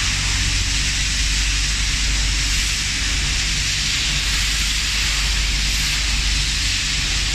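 Steady loud hiss of a powder-coating spray booth in use: air rushing through the hand spray gun and the booth's extraction, over a constant low machine hum.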